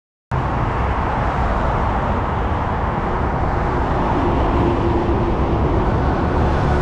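Steady road traffic noise, a dense low rumble of passing vehicles that cuts in suddenly a moment in, with a faint held hum in the second half.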